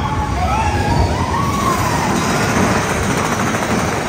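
Mine-train roller coaster cars rumbling and clattering along the track through a cave, with a brief tone that rises and falls about a second in.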